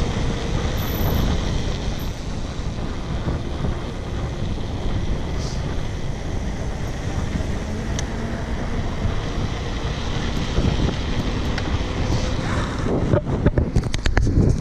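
Wind buffeting the camera microphone during a fast downhill bicycle ride on asphalt, a steady rush of noise. The buffeting turns choppier and louder near the end.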